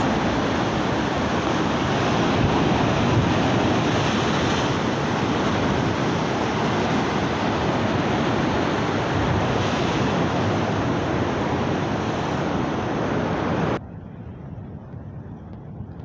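Sea surf breaking and washing against the foot of a rock cliff, a loud steady rush mixed with wind on the microphone. About 14 seconds in it cuts off abruptly to a much quieter windy hiss.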